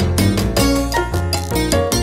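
Background music: an upbeat song with a steady beat and a strong bass line.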